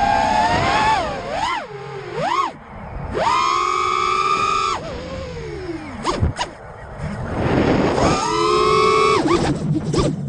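FPV racing quadcopter's brushless motors (Emax 2205 2300kv on 5-inch props) whining, the pitch swooping up and down with the throttle. The pitch holds high through two full-throttle punches of about a second and a half each, and falls away as the throttle is cut in between.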